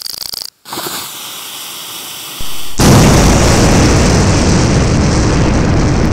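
A sudden loud explosion-like blast about three seconds in, which goes on as a heavy, continuous rumble. It follows a softer hiss and a low rumble that build up just before it.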